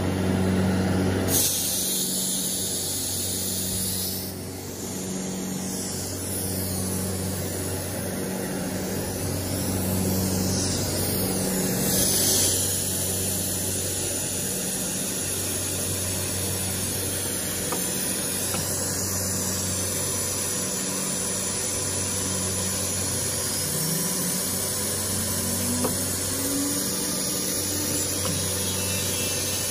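CNC router with a 6 kW spindle cutting grooves in an aluminum composite panel: a steady high-pitched spindle whine and cutting hiss over a low hum that pulses about once a second. A low tone rises briefly about three-quarters of the way through.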